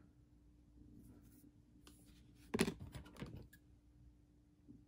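A few light clicks and taps from handling fly-tying materials and tools at the bench, the sharpest about two and a half seconds in, over a faint steady hum.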